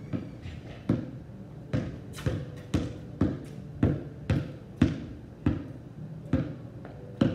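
Basketball dribbled on a concrete driveway, bouncing about twice a second.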